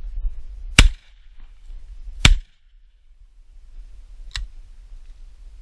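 Two shotgun shots about a second and a half apart, each with a short echo, then a fainter sharp crack about four seconds in.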